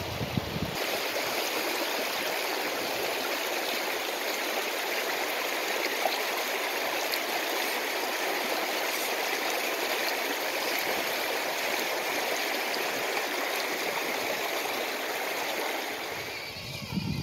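Shallow, fast river water rushing and splashing over stones, a steady even roar of moving water that eases near the end.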